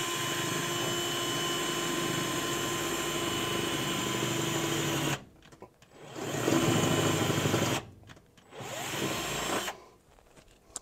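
Right-angle drill with a quarter-inch bit running, drilling pilot holes up into the truck bed from underneath. One steady run of about five seconds cuts off, then two short bursts follow, the last spinning up with a rising whine.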